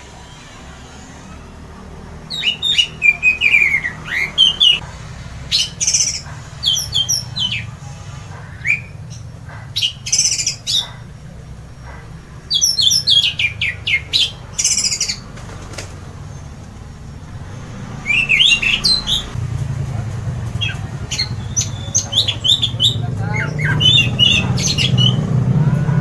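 Caged orange-headed thrush (anis merah) singing loud, full song: repeated bursts of quick rising and falling notes with short pauses between them. A low background rumble grows louder in the second half.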